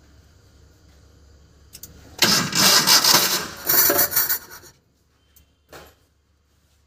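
Starter motor cranking a Maruti Omni van's engine for about two and a half seconds, with a short break partway, and the engine does not catch. It is a no-start that the mechanic puts down to rat-chewed wiring. A few faint clicks follow.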